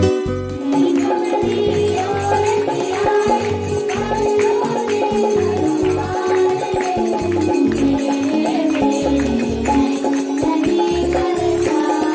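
Music with a pulsing bass line, a melody and busy shaken percussion.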